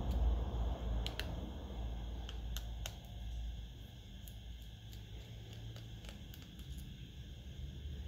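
Faint, scattered small clicks and taps of a precision Torx T5 screwdriver working the tiny screws out of a Nokia N76 phone's metal frame, over a low steady hum.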